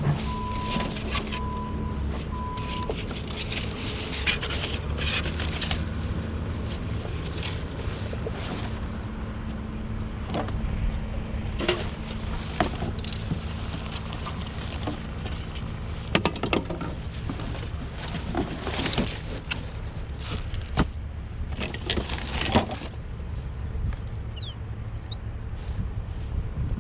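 Scrap and junk being rummaged through by hand: scattered knocks and clinks over a steady low rumble, with a few short beeps right at the start.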